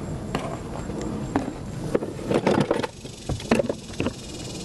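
Handling noises from an evaporative cooling fan being unpacked: rustling with scattered clicks, a busier stretch about two seconds in, then several sharp knocks.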